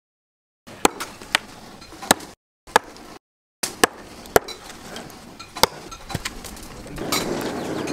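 Hand-forged short-handled axe with a leaf-spring steel head chopping into a dry log: a run of sharp, separate strikes about every half second to a second. Near the end a louder, steady rushing noise comes in under the strikes.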